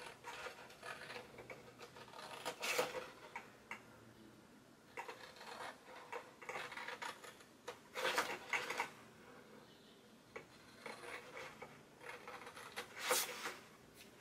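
Scissors snipping short cuts up the score lines of a sheet of patterned designer paper, with the paper rustling as it is handled, in three short bouts.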